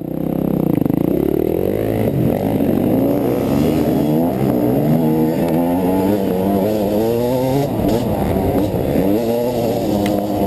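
Dirt bike engine revving up and down continuously, its pitch rising and falling every second or so as the throttle is worked, heard close up.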